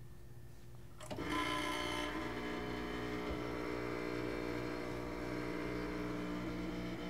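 Rocket Appartamento espresso machine's vibratory pump switching on about a second in, with a brief hiss as it starts, then a steady buzzing hum as the espresso shot pulls.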